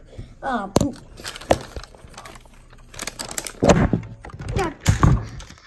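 Handling noise from a plastic mystery-egg capsule and its wrapping being pulled and handled: scattered sharp cracks and clicks, with two heavier thumps in the second half.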